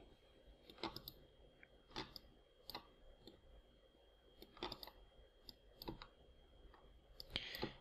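Faint, scattered clicks from a computer mouse and keyboard, about half a dozen spread over several seconds, against near silence.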